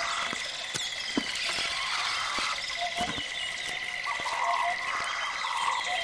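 Forest wildlife ambience: a steady high trill runs under repeated short calls, scattered chirps and a few sharp clicks.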